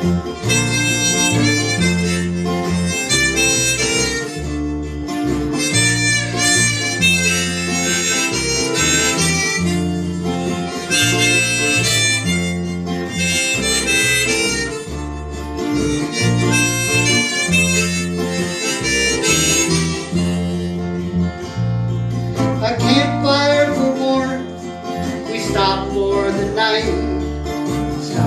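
Harmonica playing an instrumental solo over a strummed acoustic guitar and a walking electric bass line, in a country-style tune.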